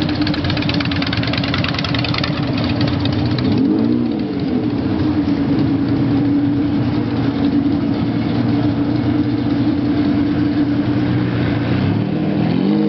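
Sports car engine idling steadily, blipped once about four seconds in and again near the end, the pitch rising and falling quickly each time.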